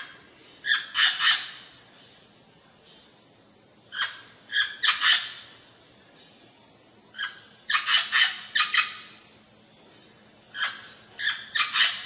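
Amazon parrot calling in short squawks, in four quick runs of three to five calls, a few seconds apart.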